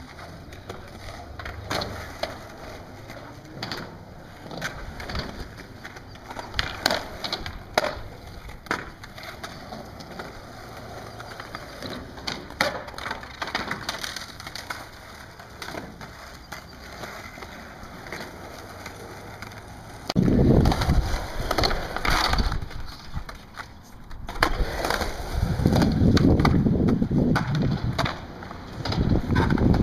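Skateboard on concrete: scattered sharp clacks of the board hitting the ground, with wheels rolling. About two-thirds of the way through, a loud low rumble comes in two long stretches.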